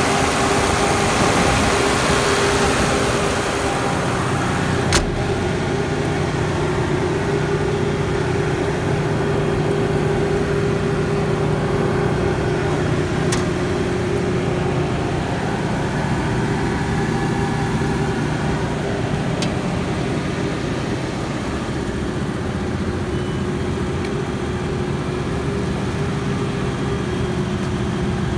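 Cummins diesel engine of a 105 kW generator set running steadily at constant speed, a steady hum with no change in pitch. It is a little quieter after about four seconds, and there is one sharp click about five seconds in and two fainter ticks later.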